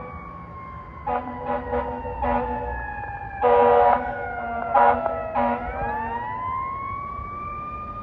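Fire apparatus responding with a siren wailing, its pitch falling and then sweeping back up about two-thirds of the way through. Over it come air horn blasts: several short ones, one long, loudest blast about three and a half seconds in, and two more shortly after.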